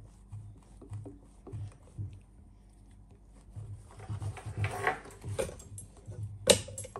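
Pocket-knife awl being twisted and worked through a leather belt on a wooden board: soft low knocks about twice a second, a rasping scrape a little past the middle, and a sharp click near the end.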